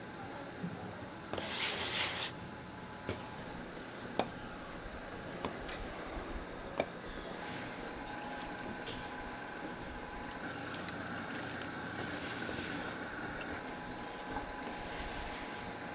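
A short, loud rubbing sweep about two seconds in, like a gloved hand smoothing a clay lid on a cloth. It is followed by the steady hum of pottery-line machinery, with a few light clicks.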